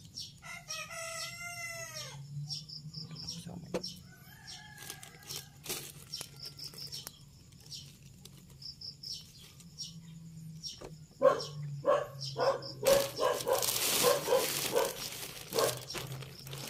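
A rooster crows once about half a second in, with small birds chirping repeatedly and a fainter call around five seconds. From about two-thirds through, clear plastic sheeting crinkles and rustles loudly as it is handled.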